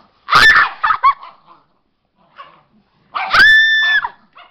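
Dog barking in play during a tug-of-war game: a few sharp barks in the first second, then one longer, high bark about three seconds in.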